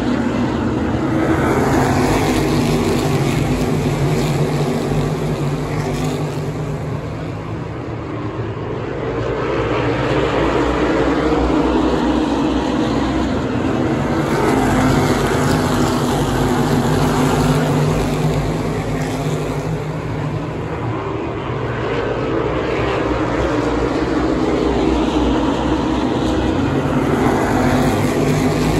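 A field of asphalt Modified race cars running their V8 engines hard around the oval. The sound swells loud as the pack comes by and eases as it goes to the far side of the track, about every thirteen seconds.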